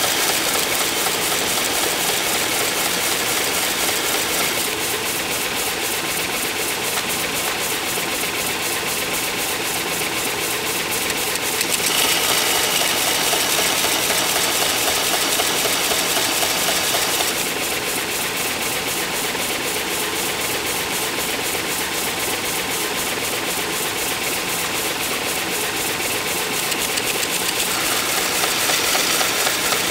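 A 6-inch belt sander running with a steel lathe chisel held in a sharpening jig and ground against a fine belt. The grinding gets louder and hissier for several seconds around the middle and again near the end.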